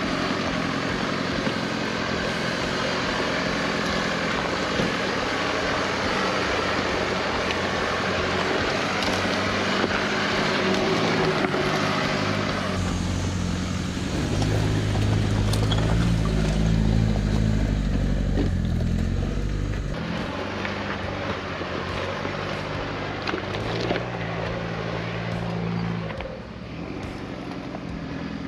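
Four-wheel-drive vehicle driving on a dirt bush track: at first mostly a steady rush of tyre and road noise, then about halfway through the engine's low note comes up strongly for several seconds and returns more weakly near the end.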